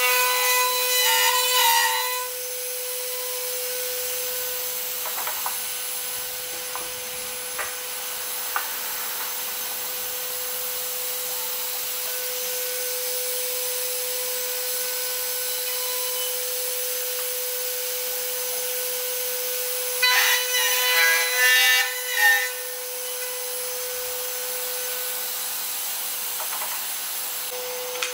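CNC router spindle whining steadily at one high pitch while its end mill cuts a small wooden workpiece. Louder rasping stretches of cutting come in the first two seconds and again about twenty seconds in.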